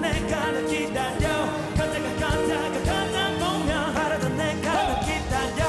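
Live pop ballad: a male vocalist sings over a band of electric guitars and drums with a string section of violins, cellos and double basses.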